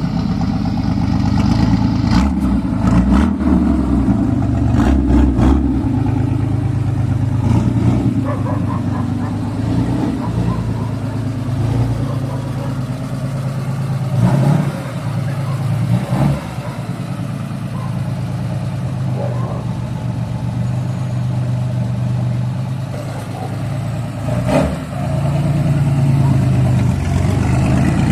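Chevrolet Opala's inline-six engine running with a deep exhaust rumble, given a few brief revs about halfway through and again near the end.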